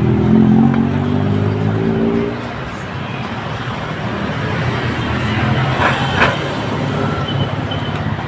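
Road traffic noise, with a vehicle engine droning low for the first two seconds and a brief rattle about six seconds in.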